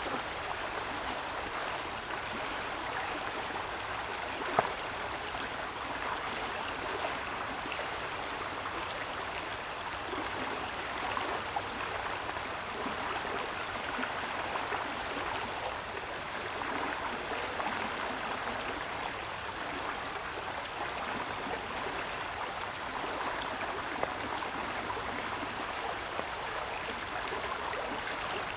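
Steady rushing of running water, with one sharp click about four and a half seconds in.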